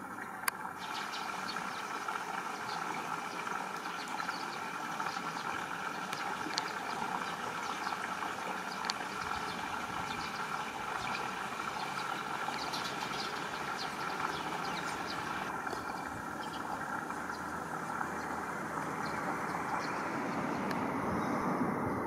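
Steady outdoor background noise with a constant rushing hiss. Many short, high chirps or ticks are scattered through the first two-thirds.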